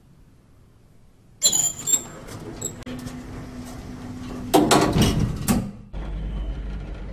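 Lift doors sliding shut about a second and a half in, followed by a louder mechanical burst. From about six seconds in, a steady deep hum as the lift car starts to move.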